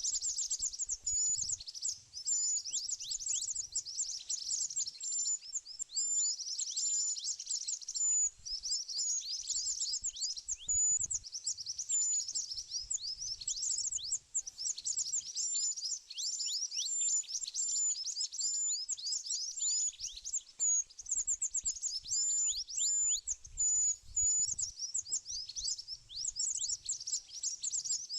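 Small birds chirping continuously: a dense run of quick, high downward-sweeping chirps overlapping one another, with a short high note repeated over and over.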